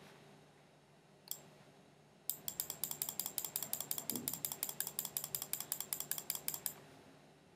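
Computer mouse clicking: one click about a second in, then a rapid, even run of clicks at about eight a second that starts a couple of seconds in and stops near the end.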